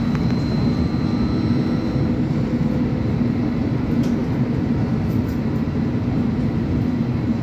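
AKSM-321 trolleybus running along the street, heard from inside the passenger cabin: a steady low rumble, with a faint high whine that fades out about two seconds in.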